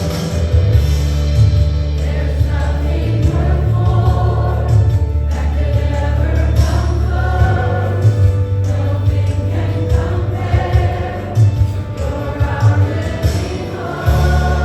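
Live contemporary worship music: a church band with a heavy, steady bass and sustained chords, with voices singing.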